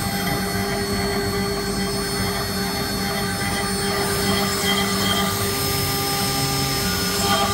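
CNC router spindle running and cutting into a wooden workpiece turning on the rotary axis: a steady whine over the noise of the cut.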